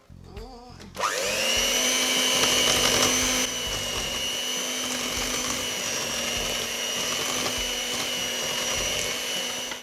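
Electric hand mixer switched on about a second in: its motor spins up with a brief rising whine, then runs at a steady whine. Its beaters are working flour into cookie dough.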